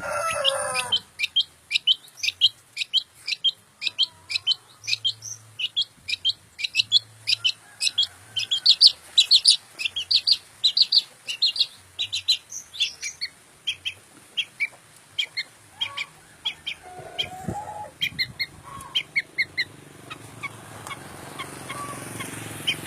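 Long-tailed shrike (cendet) calling: a rapid series of short, sharp high notes that thins out and stops about twenty seconds in.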